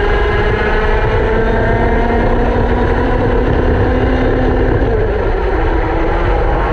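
Racing go-kart engines at speed, heard from onboard a kart: the engine note holds fairly steady with slight rises and falls through the corners, and another kart's engine is heard close ahead.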